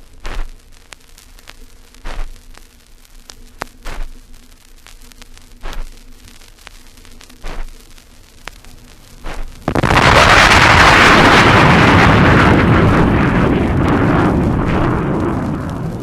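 Vinyl record surface noise with a click that comes back about every two seconds, once per turn of the record. About ten seconds in, the sonic boom of an F-104 Starfighter cuts in suddenly and loudly, then rumbles on and slowly fades.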